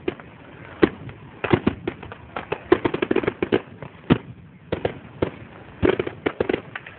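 Fireworks display: aerial shells bursting in a run of sharp bangs and crackles at irregular spacing, some coming in quick clusters of several at a time.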